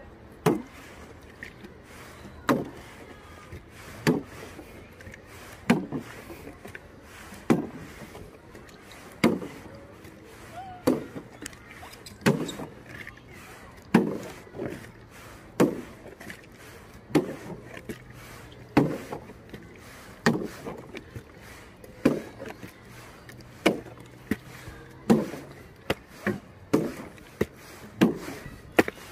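Repeated dull knocks, one every second and a half to two seconds at first and coming more often in the second half.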